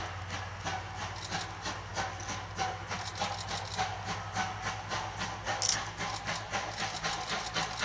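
Exhaust beats (draft) of the C12 66 steam tank locomotive working hard under load: an even, rapid chuffing at about four beats a second.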